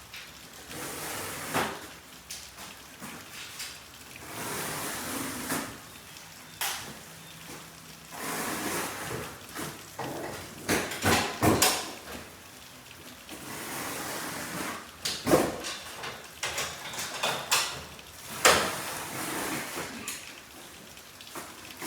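Irregular knocks, clanks and scraping of hand work on a garage door being installed, with sharp strikes at uneven intervals between stretches of rubbing.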